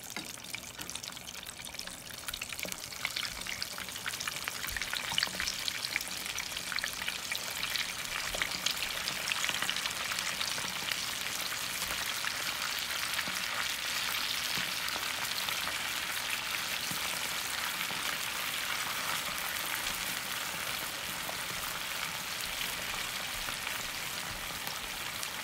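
Spice-coated crappie pieces deep-frying in hot canola oil at about 330 °F, the oil sizzling and crackling densely. It grows louder over the first ten seconds or so as pieces are lowered in one at a time, then holds steady.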